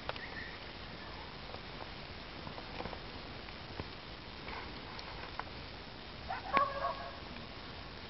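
Bonfire crackling, with a few scattered pops over a steady hiss. A short pitched call sounds about six and a half seconds in, the loudest thing here.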